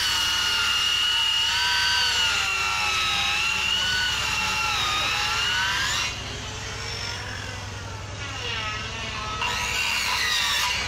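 Handheld electric circular saw ripping lengthwise along a wooden board, its high motor whine sagging and recovering in pitch as the blade takes the load. The sound turns quieter about six seconds in and loud again near the end.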